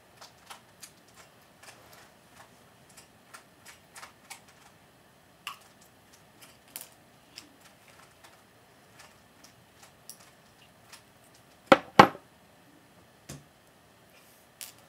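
Tin snips and thin wire being handled, giving a scatter of small light clicks and ticks, then two sharp snaps close together near the end as the snips cut through the wire.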